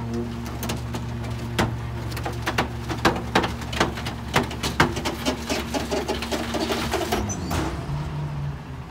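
McNeilus rear-loader garbage truck's hydraulic packer running under a steady engine hum as its blade crushes white fabric-covered bulky furniture, with a run of sharp cracks and snaps as the load gives way. About seven seconds in the cracking stops and the machine's hum drops in pitch as the packer cycle changes.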